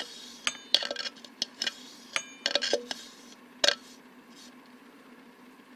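Silicone brush scraping inside a plastic Magic Bullet blender cup, with the cup knocking against a stainless steel bowl: a run of light clicks, taps and scrapes, some with a short ring, over the first four seconds, then only a faint steady hum.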